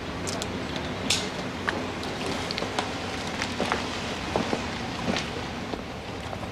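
Steady outdoor background noise, an even hiss with scattered faint ticks and short high chirps.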